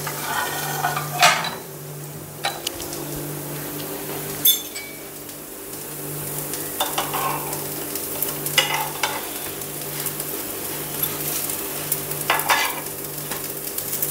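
Rice-and-potato pancakes sizzling in oil on a flat nonstick pan, with a few short knocks and scrapes against the pan as the pancakes are lifted and turned by hand.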